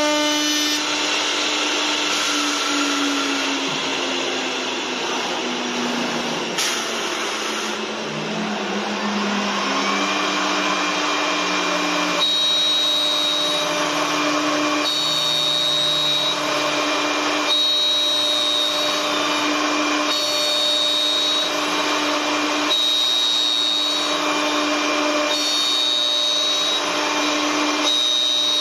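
Wood CNC turning lathe cutting twisted spiral spindles: the high-speed cutter spindle motors whine over a steady hiss of cutting wood. In the first third the motor pitch glides down and then back up, and after that a high tone returns about every two and a half seconds.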